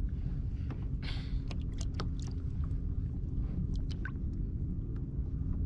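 Scattered small clicks and knocks over a low steady rumble, from a plastic fishing kayak and its gear on the water. The clicks thin out after about four seconds.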